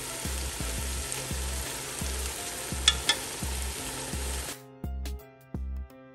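Finished Edikaikong vegetable soup sizzling in a metal pot on the stove as a metal spoon stirs it, with two sharp clicks of the spoon against the pot about three seconds in, over background music with a steady bass beat. The sizzling stops about four and a half seconds in, leaving only the music.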